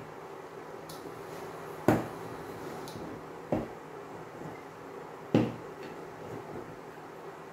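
Wooden rolling pin knocking against the rim of a flan tin while trimming excess puff pastry: three sharp knocks about two seconds apart.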